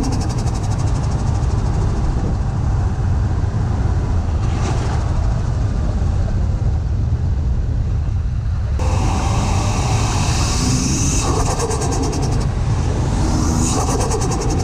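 Toyota Chaser's 1JZ-GTE turbocharged 2.5-litre straight-six running under way, heard from inside the cabin. The engine sound eases off for several seconds, then gets suddenly louder and busier about nine seconds in, with a high rising whistle near the end.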